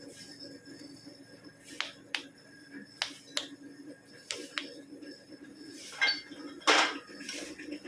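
Sharp metallic taps and clinks of metal tools and parts being handled, about eight irregularly spaced, the loudest near the end, over a steady low hum.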